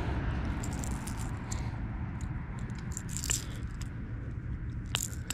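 Small scattered clicks and rattles of a plastic crankbait and its treble hooks being worked out of a largemouth bass's mouth by hand, over a low steady rumble.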